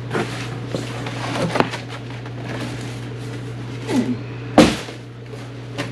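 Knocks and clunks of a small electric water heater being handled and set down, the loudest about four and a half seconds in, over a steady low hum.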